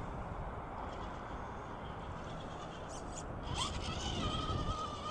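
Steady background noise, then about three and a half seconds in a whine that rises and levels off into a steady high tone: an RC rock crawler's electric motor under throttle.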